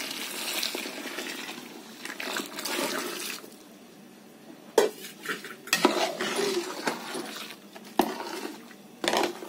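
Hot water pouring from a steel vessel into a large aluminium pot of roasted semolina (rava) for upma, a steady splashing for about three seconds. Then come sharp metal clanks of the ladle against the pot as the mixture is stirred.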